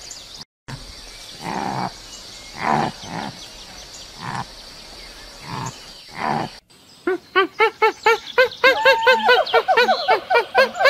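Red deer calling in short, hoarse grunts, six of them spread over about five seconds. After a sudden break near the end, a fast stream of high, arching chirps follows, overlapping one another.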